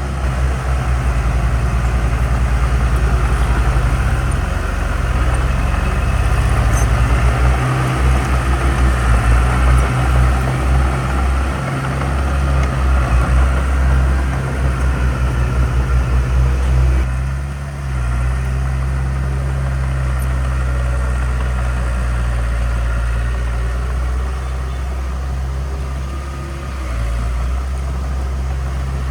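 Heavy diesel engine of earthmoving equipment running loudly, its level surging and pulsing unevenly through the first half, then running steadier after a brief dip about eighteen seconds in.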